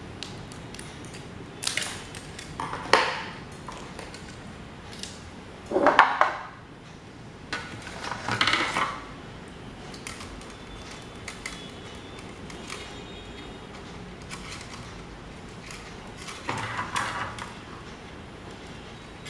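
Metal parts of an old desk fan clinking and clattering as they are handled, in about five separate bursts with a faint ring after some of them.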